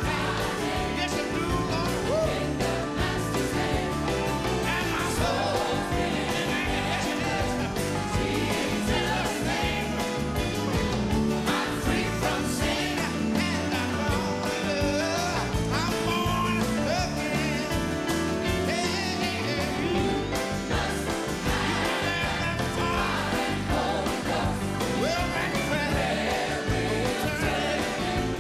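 Live gospel song: a male soloist singing into a microphone over a band, with a choir singing behind him.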